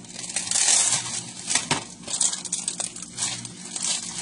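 A plastic bag of small potatoes crinkling as it is handled and pulled at, in several irregular rustling bursts.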